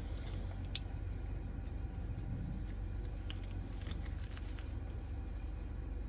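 Small clicks and taps from the ignition lock cylinder and its parts being handled and fitted into the housing, the sharpest click about a second in, over a steady low hum.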